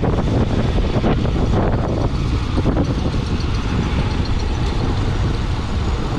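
Motorcycle running at cruising speed with road noise, heard from the rider's seat, with wind buffeting the microphone during the first couple of seconds.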